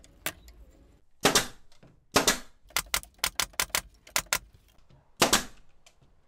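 Bostitch pneumatic nailer firing nails into pine door-frame joints: three loud sharp shots, each with a short burst of air, and between the second and third a quick run of about nine lighter sharp clicks.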